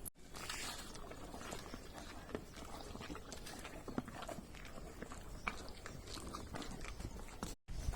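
An animal chewing and biting food, with many small irregular crunching clicks. The sound cuts out briefly just after the start and again near the end.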